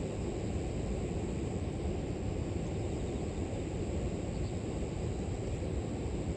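River water rushing steadily, a deep even rush, with a continuous high, thin trill of grass insects over it.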